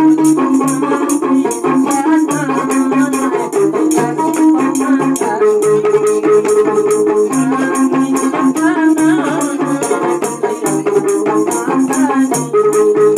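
Traditional gambus music: small frame drums beaten by hand in a fast, steady rhythm under a melody of held notes on the gambus lute.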